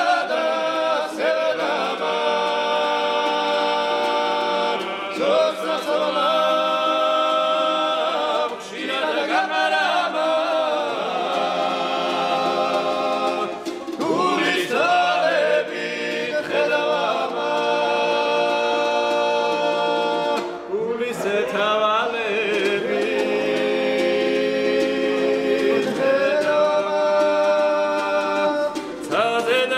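A group of men singing a Georgian table song together in several-part harmony, in long phrases of held chords.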